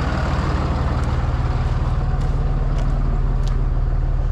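Tow truck engine running steadily under load while dragging a flood-damaged vehicle whose wheels don't turn.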